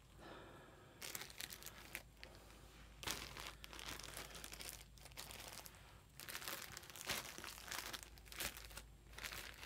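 Plastic wrapping around packs of yarn crinkling as they are picked up and handled: irregular rustles that start about a second in.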